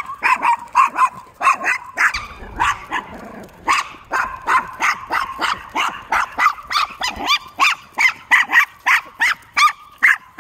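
A small dog on a leash barking hard and fast, a rapid string of high-pitched yaps about three a second with hardly a pause: leash-reactive barking at other dogs.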